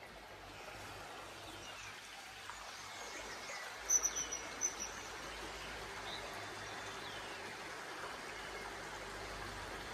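Steady rush of a shallow, rocky river, growing a little louder over the first couple of seconds, with birds chirping over it and a quick run of high chirps about four seconds in.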